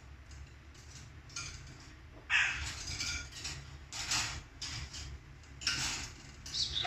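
A pet bird giving a series of short, noisy squawks, about six in quick succession, over a low steady hum.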